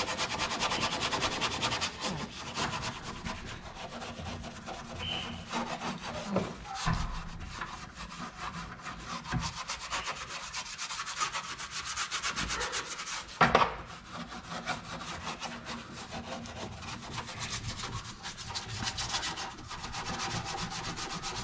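Paintbrush scrubbing the bare sheet-metal inside of a car door to loosen grime, in quick back-and-forth rasping strokes. A single sharp knock comes a little past halfway.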